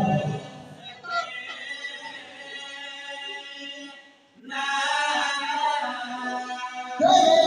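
Slow vocal chanting of a lament, with long held notes and no instruments. It breaks off briefly about four seconds in, then comes back louder.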